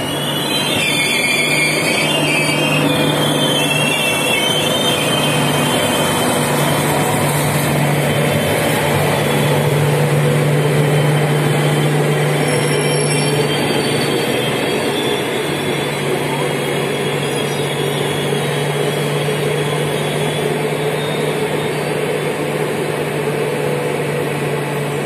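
Passenger train coaches rolling slowly past on the adjacent track. The wheels squeal high-pitched for the first few seconds, over a steady low hum and the rumble of the running gear.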